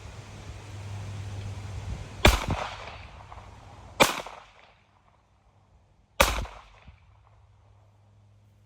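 Three shots from a Ruger LCP .380 ACP pocket pistol, about two seconds apart, each a sharp crack with a short echo trailing off.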